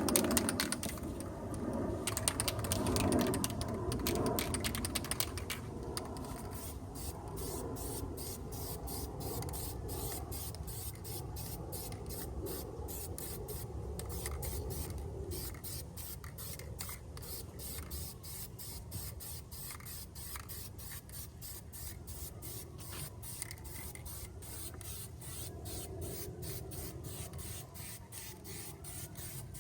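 Aerosol rattle can of sandable filler primer spraying in passes over a car panel, with a fast, even ticking running through the hiss.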